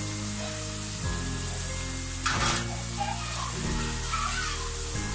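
Potato slices sizzling steadily as they fry in hot oil, with a slotted spatula stirring and scooping through them to lift out the chips; a brief louder scrape about two and a half seconds in.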